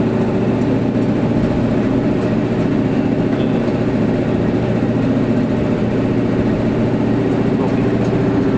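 Bulk-plant air compressor and its electric motor running steadily with a loud, even hum. The motor has a bearing problem.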